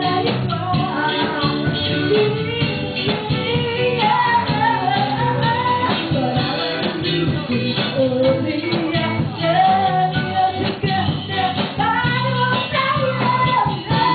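A band performing a song: a singer's melody carried over backing instruments and a steady beat.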